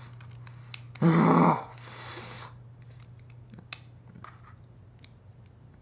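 A short, loud vocal sound about a second in, then a few small sharp clicks of plastic Lego bricks being handled and pulled apart.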